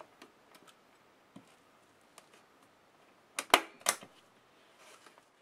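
T50 manual staple gun firing twice, two sharp snaps about half a second apart, driving staples through speed cloth into the tabletop board. Faint rustles and small clicks of the cloth being handled come before.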